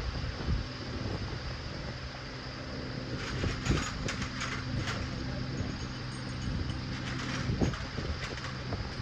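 A motor running steadily with a low hum, with a few short knocks, around the second, the fourth and the eighth second.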